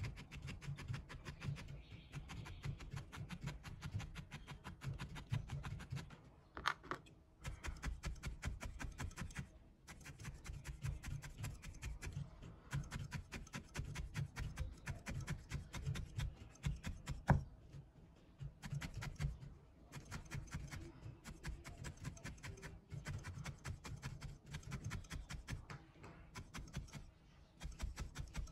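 Felting needle stabbing a tuft of wool into a linen-covered foam work pad: a fast, continuous run of soft pokes as the wool is packed firm. There is one louder tap partway through.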